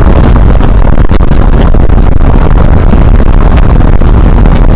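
Loud, low wind buffeting on an action camera's microphone from a moving Honda CBR125R motorcycle, with a few sharp clicks. Any engine note is buried under it.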